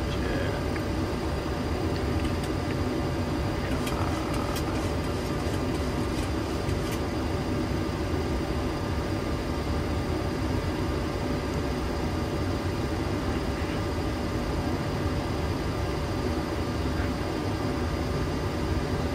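Steady flight-deck noise of a Boeing 737-800 in descent: the hiss of airflow over the cockpit and the engine hum, with a faint steady whine through it. A few light clicks come between about two and seven seconds in.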